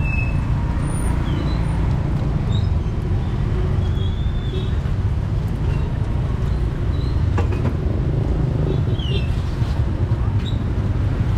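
Street traffic ambience: a steady low rumble of passing vehicles, with a sharp click about seven seconds in.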